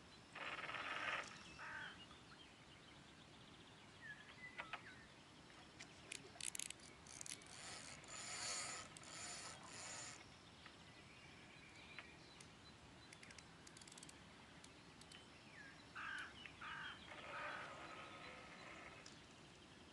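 Fixed-spool reel on a 7 m bolognese rod ratcheting and whirring in short, irregular bursts of clicking while a hooked fish is played on the bent rod.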